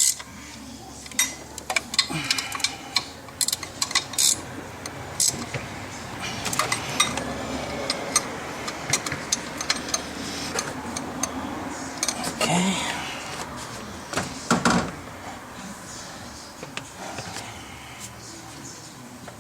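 Metal tools and hardware clinking and knocking as they are handled and set down, with a run of sharp clicks and rustling. There is a louder cluster of knocks about two thirds of the way through.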